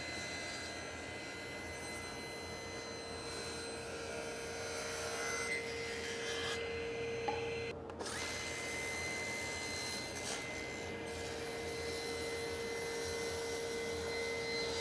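Festool Domino joiner running, a steady motor whine as it cuts mortises into elm. The motor cuts off briefly about eight seconds in and spins back up.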